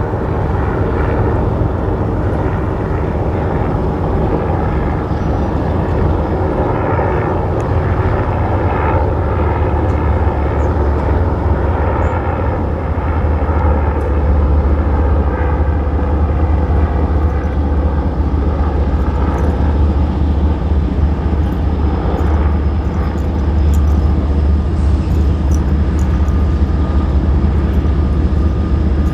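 Diesel train passing: a loud, steady low rumble with engine tones running over it.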